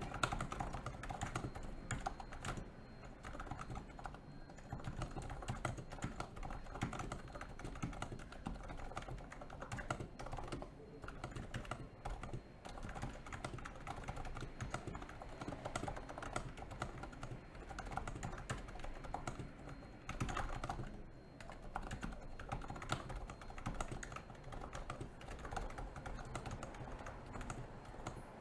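Continuous typing on a NIZ Plum 87 electro-capacitive keyboard: a steady, dense run of keystrokes, several a second, with only brief pauses.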